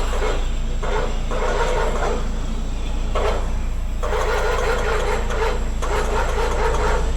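Tow truck's engine running with a steady low rumble, with repeated bursts of rushing, hissing noise on top, about five of them and the longest near two seconds.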